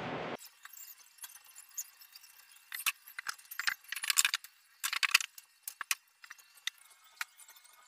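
Plywood panels being handled and fitted together by hand: a scatter of light wooden knocks, clacks and scrapes, bunched in a few quick clusters. A steady hiss cuts off just at the start.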